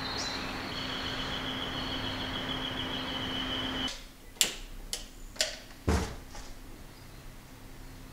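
Outdoor street ambience with a steady low hum and a high steady tone, cut off suddenly. Then a quiet room with a handful of sharp clicks and knocks, the loudest a heavier thump about two seconds later.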